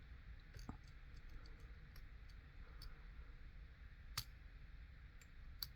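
Faint, irregular metallic clicks of a lock pick working the pin stacks inside a U.S. postal rotary padlock, with two sharper clicks, one about four seconds in and one near the end.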